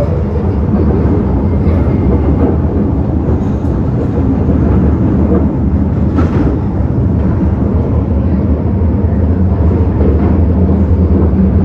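Interior running noise of an MTR Metro-Cammell M-Train on the move: a steady rumble of wheels on rail and running gear with a low hum underneath, growing slightly louder.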